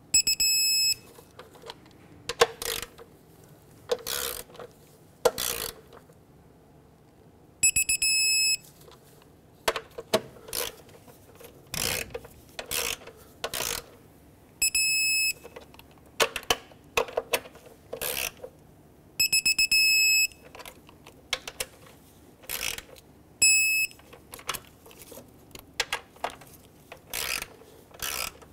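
Electronic torque wrench ratcheting on the intake manifold bolts, with scattered clicks, and giving a high steady beep five times, each up to about a second long, as each bolt reaches the set torque of 89 inch-pounds.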